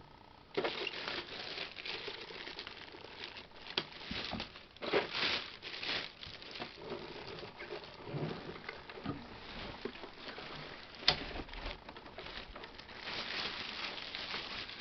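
Plastic packaging rustling and crinkling as it is handled, with scattered small knocks and clicks; one sharp click about eleven seconds in is the loudest.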